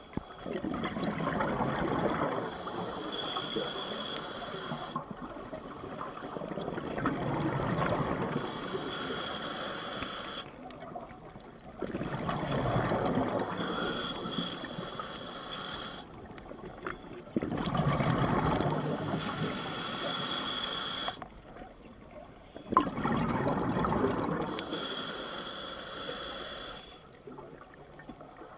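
A scuba diver breathing through a regulator underwater, heard through a waterproof camera housing. There are about five regular breaths, one every five to six seconds, each a long burst of bubbling from the regulator exhaust followed by a short quiet pause.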